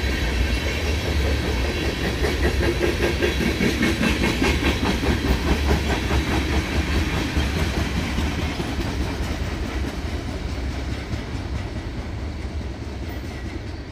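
Freight train of tank cars rolling past, its steel wheels clicking over the rail joints in a steady rhythm over a low rumble. The sound fades gradually in the second half as the end of the train goes by and draws away.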